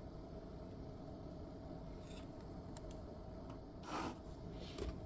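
Small handling sounds from work on an amplifier at the bench: a short scrape about four seconds in and a shorter one near the end, with a few faint clicks, over a steady low hum.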